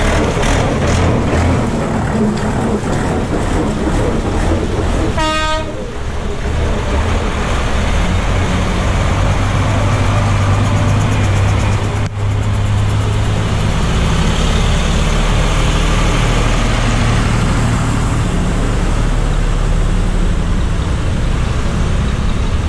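Vintage tractor engines running as the tractors drive one after another through a shallow ford, wheels splashing through the water. A vehicle horn toots once, briefly, about five seconds in.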